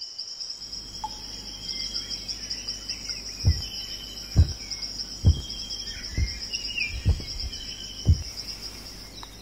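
Crickets chirring steadily in a high, pulsing trill, with faint bird chirps. About a third of the way in, a run of six deep thumps begins, evenly spaced just under a second apart; they are the loudest sounds.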